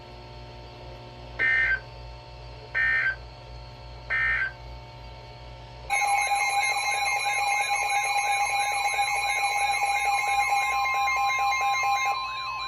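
Emergency Alert System data signal and alert tones. First come three short digital squawks about a second and a half apart, the end-of-message codes that close a warning. A couple of seconds later a loud electronic alert tone starts, with warbling tones over it, announcing the next severe thunderstorm warning. Near the end only a single steady tone carries on.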